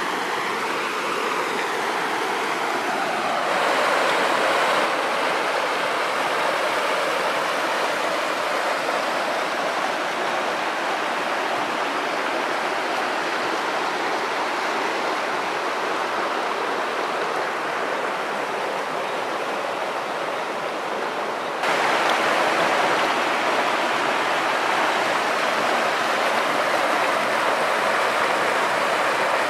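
Mountain river rushing and splashing over rocks in small rapids, a steady rush of water that grows louder about four seconds in and again about 22 seconds in.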